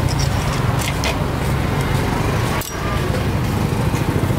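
Street traffic: vehicle engines running close by as a steady low rumble, with a brief dip a little after halfway.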